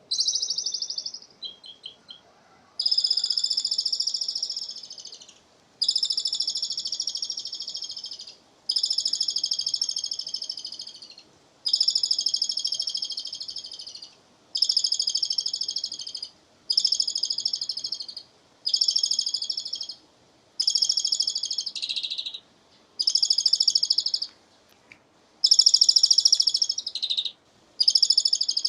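Javan pied starling (jalak suren) calling over and over in a rapid, chattering series that sounds like a person laughing. The calls come in about a dozen bursts of about two seconds each, each starting loud and fading toward its end, with short pauses between them.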